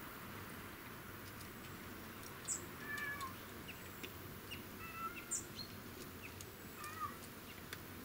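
Small birds chirping in short scattered calls, with a few thin, high, down-slurred notes, over a faint steady hiss.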